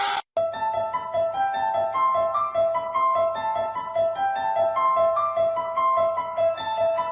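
Piano-like keyboard music: a note repeated about twice a second under a stepping melody. It starts just after a short loud sound, rising in pitch, is cut off at the very start.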